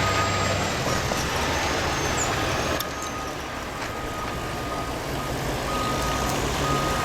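Diesel engine of a heavy machine or truck running steadily, with its reversing alarm beeping near the start and again near the end.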